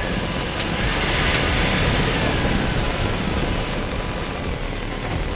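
The electric motors and gears of a homemade RC truck run steadily as it drives a heavy trailer across concrete.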